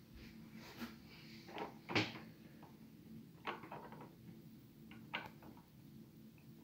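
A few scattered knocks and clacks of hard objects being handled and set down, the loudest about two seconds in, over a faint steady hum.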